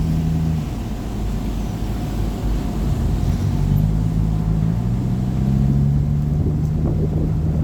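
River tour boat's engine running, heard on board as a steady low hum over water and wind rush. The hum eases about half a second in and picks up again around three and a half seconds.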